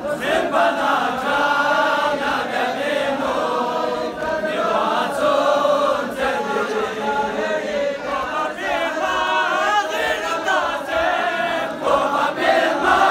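A large crowd of men chanting a Muharram mourning lament (nauha) together, phrase after phrase.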